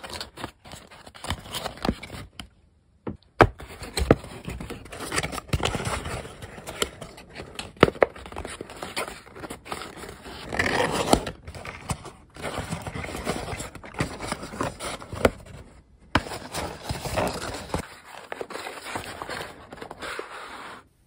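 Origami paper being folded and pressed by hand into a pleated tessellation: continual crinkling and rustling with sharp creasing crackles, broken by two short pauses.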